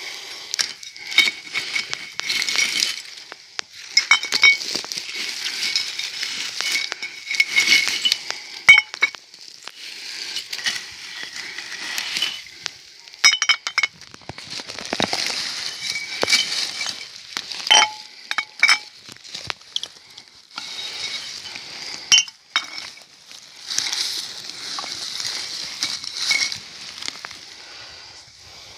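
Small glass bottles clinking against one another in repeated short clinks, over rustling and snapping of moss, dry twigs and undergrowth.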